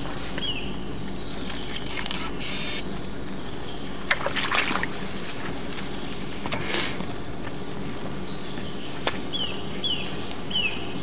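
Dry grass, leaves and twigs rustling and crackling in bursts as hands work a demolition charge into place on an artillery shell. A bird gives short falling chirps near the start and again near the end. A steady hum and hiss sit under everything.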